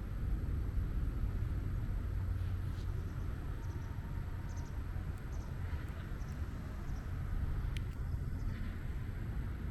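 Steady low rumble of outdoor background noise, with a few faint, short high chirps scattered through the middle and a single small click near the end.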